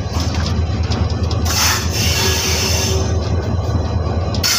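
Locomotive engine running with a steady low drone, heard from on board as the engine moves slowly along the track, with a couple of brief hissing gusts.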